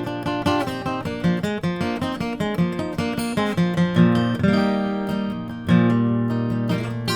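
Solo acoustic guitar playing an instrumental break: a quick run of picked notes over a steady bass note, with chords struck and left to ring about four seconds in and again near six seconds.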